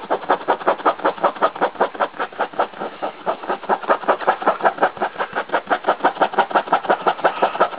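French bulldog panting hard and fast, a steady rhythm of about six loud breaths a second.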